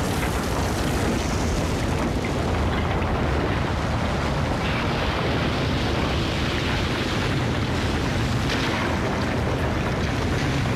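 Cartoon sound effect of an earthquake: a continuous deep rumble of buildings collapsing, with no break from start to end.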